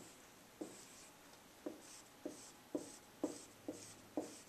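Dry-erase marker drawing short lines on a whiteboard: a series of quick taps and swishes, about two strokes a second, as tally sticks are drawn.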